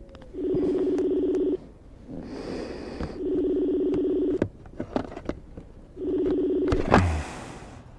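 Smartphone's outgoing-call ringing tone from its speaker: three rings about a second long with short pauses between them. A sharp knock comes near the end.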